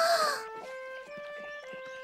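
A short cartoon moose bellow, one call that rises and falls in pitch over a breathy hiss, lasting about half a second. Gentle background music of held notes follows.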